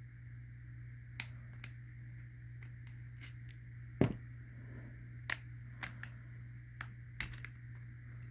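Scattered clicks and knocks of gas mask parts being handled and taken apart, about six in all, the loudest about four seconds in, over a steady low hum.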